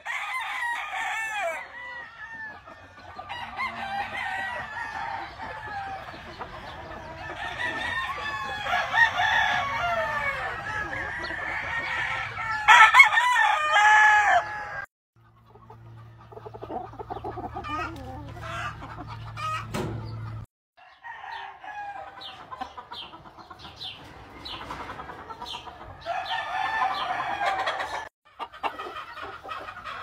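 Gamefowl roosters crowing over and over, with hens clucking in between; the crows overlap from several birds. The loudest crowing comes a little before the middle, and the sound breaks off sharply a few times where clips are joined.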